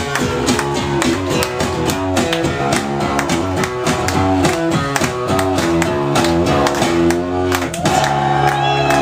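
Acoustic guitar strummed in a steady rhythm, ending in a held, ringing chord about eight seconds in.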